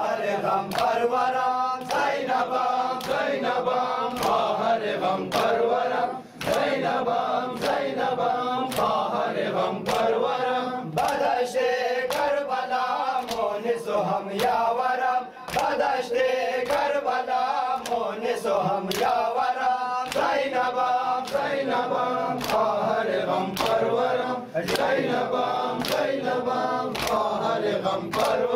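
A group of men chanting a Shia lament for Ashura in unison, with rhythmic chest-beating (matam) slapping in time at about two strikes a second.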